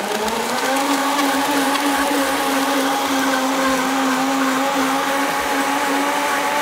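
Countertop blender running at full speed, blending a liquid chocolate milk smoothie. Its motor whine climbs in pitch as it spins up in the first second, then holds steady.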